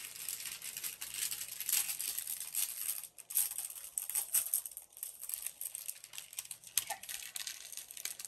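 Small plastic bags of diamond-painting drills crinkling as they are handled and sorted, an irregular run of crackles throughout.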